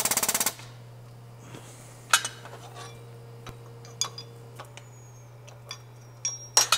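The air-driven hydraulic pump of a Vevor CH-70 hole punch runs with a loud, rapid pulsing, then cuts off about half a second in as the punch stroke ends. Light metallic clinks and taps follow as the punched sheet metal is pulled out of the steel die, over a low steady hum.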